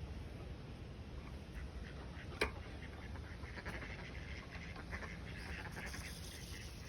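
Water birds calling with duck-like quacks, in a scatter of short calls. A single sharp click comes about two and a half seconds in.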